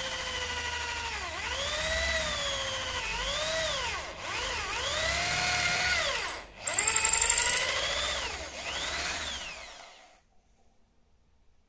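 Electric drill boring through a wooden block held in a steel bench vise; the motor's whine rises and falls in pitch several times as it runs, breaks off briefly about six and a half seconds in, then runs again before winding down and stopping near the end.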